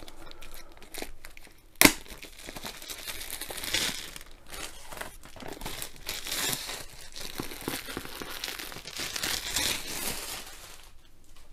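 Crinkling and rustling of a diamond painting kit's cardboard box and its paper packaging being worked open by hand, with a single sharp snap about two seconds in.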